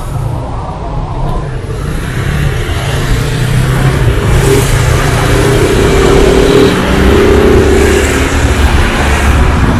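Close-range city traffic: a diesel bus and car engines running and idling in a dense rumble that grows louder after about three seconds, with a faint held engine hum through the middle.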